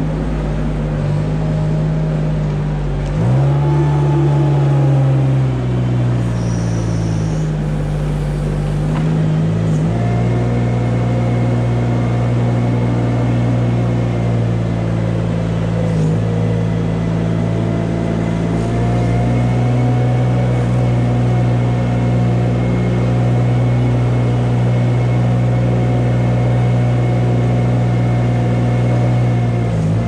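Engine of a small ride-on barn machine running steadily as it drives along the cow alleys. Its pitch shifts a couple of times in the first ten seconds, then holds steady.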